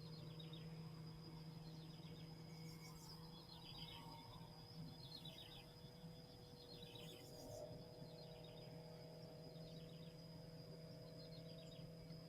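Near silence: faint outdoor ambience with soft chirps repeating every second or two over a thin steady high whine.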